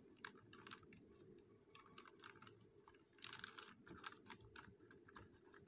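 Faint computer keyboard keystrokes, irregular single taps and short runs as digits are typed in.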